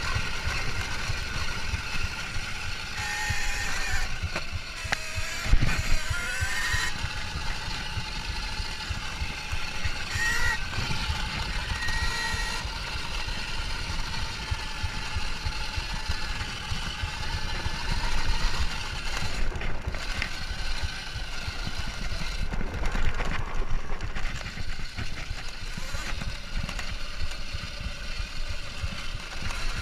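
Kuberg Ranger 14 kW electric off-road motorbike ridden fast over a bumpy dirt trail: a thin electric-motor whine that climbs with speed about five seconds in and again around ten seconds, over steady rumble and rattle from the tyres and suspension.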